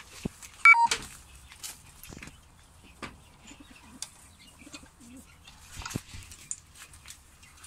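Mardin pigeons cooing softly, with scattered clicks and rustles. A brief, loud squeak comes about a second in.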